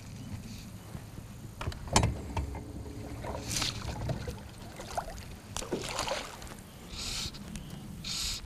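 Knocking and water sounds in a small fishing boat while a small fish is handled: one sharp knock on the hull about two seconds in, then several short splashy rustles.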